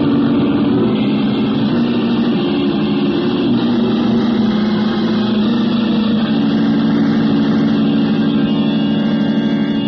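Radio-drama sound effect of a spaceship's rocket engines firing a long blast: a loud, steady engine drone with held low tones beneath it.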